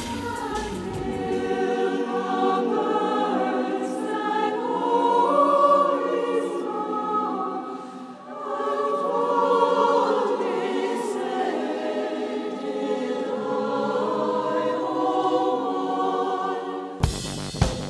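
A choir singing slow, sustained phrases, with a short break about halfway through. Near the end it cuts to band music with a steady beat.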